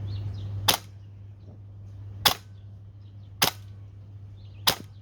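Airsoft electric rifle with a 13:1 gear set and short-stroked piston, test-fired in semi-auto: four single sharp shots at uneven gaps of about one to one and a half seconds.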